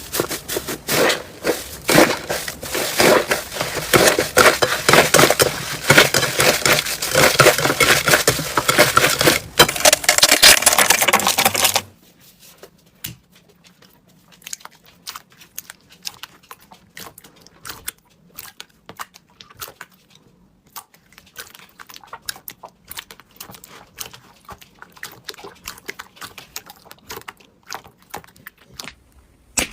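Slime being squeezed and pressed by hand, giving a dense run of crackling, popping clicks. About twelve seconds in it drops to much quieter, sparser small clicks and squelches.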